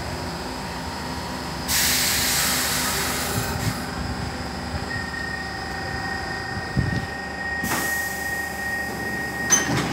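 A 1970 C6 Stockholm metro train standing at a platform: a loud burst of compressed-air hiss about two seconds in, then a thin steady whine, a second shorter hiss near the end, and a couple of knocks.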